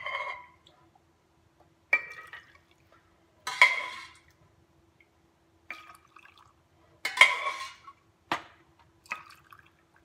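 A metal half-cup measure clinks against a stainless pot as it scoops hot pickling brine, and the brine splashes as it is poured into glass mason jars of sliced zucchini. There are about six or seven short ringing clinks, each followed by a brief pour, over a faint steady hum.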